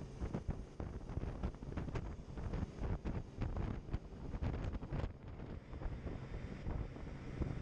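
Wind buffeting the microphone on a moving boat, in irregular gusts, over the boat's running noise and water.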